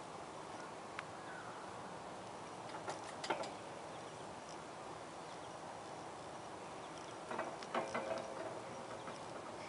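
Steady outdoor background hiss with a few short clicks and knocks, one cluster about three seconds in and another, with a brief faint squeak, near the end.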